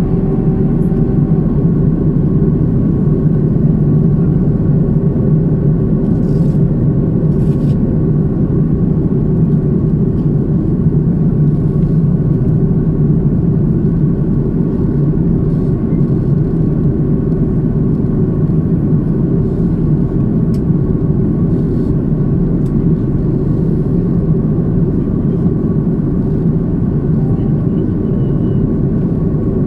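Steady cabin drone of an airliner in flight: an even low rumble with a few constant engine tones over it, unchanging throughout.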